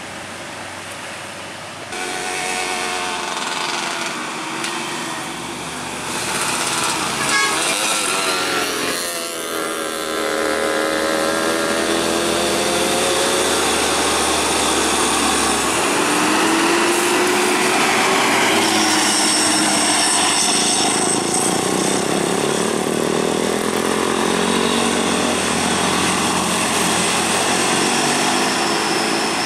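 A Hino dump truck's loud air horn, likened to a cruise ship's horn, sounds at length over its diesel engine as it climbs, its pitch bending up and down. It grows louder about a quarter of the way in.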